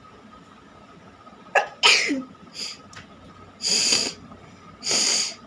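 A person sneezing once, brought on by a chili: a sharp sneeze about a second and a half in whose voice falls in pitch. Then two short, noisy blasts of breath about a second apart.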